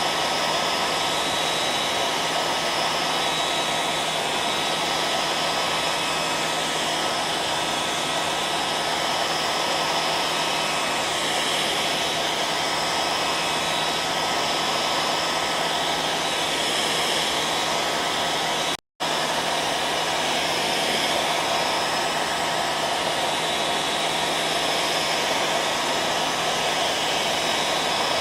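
Electric hair dryer running steadily: an even rushing blow with a few faint steady tones in it. It cuts out for a split second about two-thirds of the way through, then carries on unchanged.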